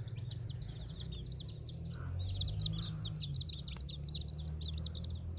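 Young domestic chicks peeping continuously, many rapid high chirps overlapping one another, over a steady low rumble.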